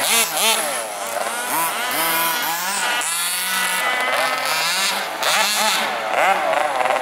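Small engines of two large radio-controlled model cars running and revving, their pitch rising and falling over and over as the cars accelerate and slow.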